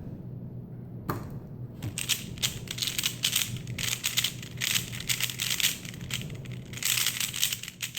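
A MoYu HuaLong 3x3 speedcube being turned very fast, at about seven turns a second: a dense, continuous run of plastic clicking and clacking that begins sharply about a second in.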